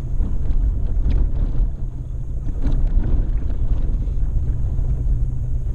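Off-road vehicle driving a rough dirt road: a steady engine and driving drone, with wind buffeting the microphone and a few light knocks.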